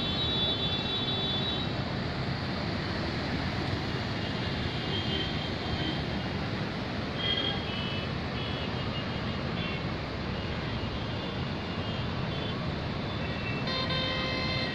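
Steady wash of city traffic noise from a jammed, waterlogged road. Vehicle horns sound at the start, a few short horn toots come about halfway through, and another horn sounds near the end.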